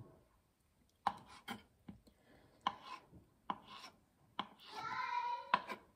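Kitchen knife chopping hard-boiled egg on a wooden cutting board: a series of separate sharp knocks of the blade on the board. Near the end a brief pitched call, about a second long, sounds alongside.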